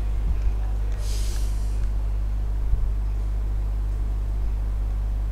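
Steady low electrical hum, with a brief hiss about a second in.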